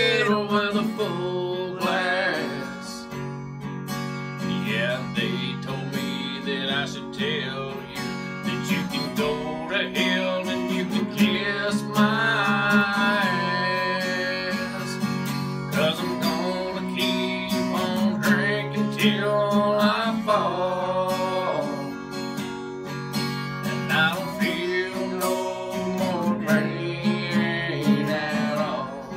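A man singing a country song while strumming an acoustic guitar, with the vocal line carried throughout over steady chords.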